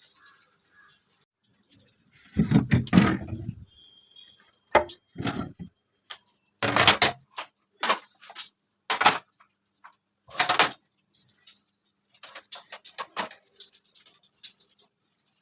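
A series of clatters, knocks and rattles as containers and other items are taken out of a fridge and set down, one after another with short pauses between; the heaviest and longest clatter comes about two and a half seconds in.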